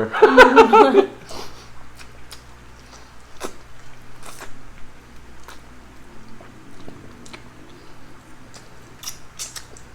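Close-up eating sounds: scattered clicks and smacks of biting and chewing, with a person's voice for about the first second.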